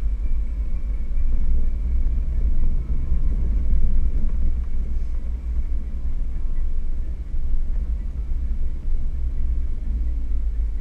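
Jeep Wrangler driving on a rough dirt road, heard from inside the cab: a steady low engine rumble mixed with tire and road noise.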